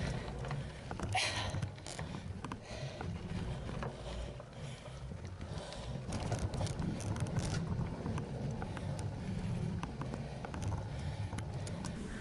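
Gravel bike rolling over a dirt trail: an uneven low rumble of the tyres and frame vibration, with many small clicks and rattles from loose dirt and the bike's parts.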